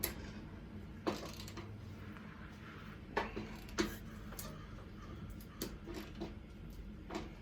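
Metal tools and parts clinking and knocking now and then during hand work on a machine teardown, about seven short knocks over a low steady hum.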